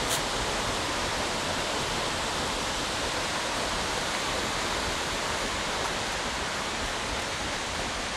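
Steady rushing of a large waterfall in heavy monsoon flow, Abbey Falls, heard through the forest.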